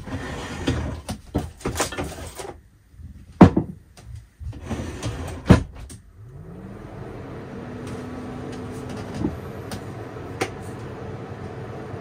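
Things being handled with clatter and rustling, then two sharp knocks like a cupboard or door being shut. About halfway through a small motor spins up with a rising whine and settles into a steady running noise.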